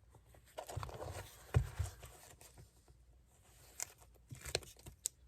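Thin leather strip being handled and folded over an edge: soft rustling with a few light taps and clicks, the loudest about a second and a half in.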